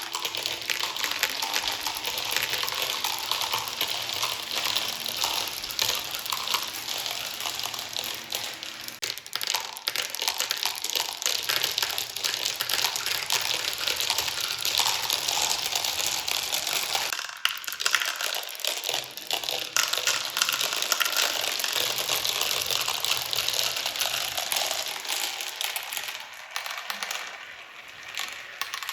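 Many marbles rolling and clattering down a marble run: a dense, continuous stream of clicks and rattles as they knock against the track and each other. There is a short lull a little past halfway and a quieter stretch near the end.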